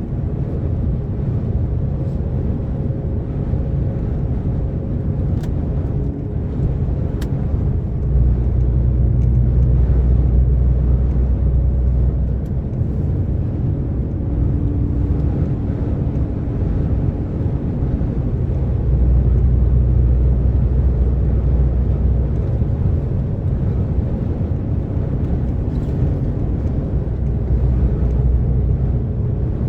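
DAF XF 460 lorry's six-cylinder diesel running at motorway cruise, with steady road and tyre noise. The low drone swells louder twice for a few seconds each.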